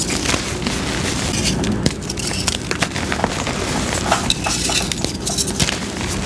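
Blocks of gym chalk crushed and crumbled in the hands: a dense, irregular run of dry crunching crackles.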